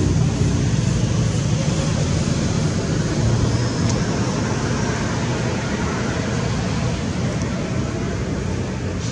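Steady low background noise with no distinct events, easing slightly toward the end.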